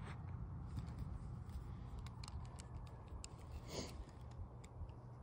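Faint, irregular clicking from a fishing rod and reel being handled and slowly reeled while a Texas-rigged lure is worked back, over a low steady outdoor rumble.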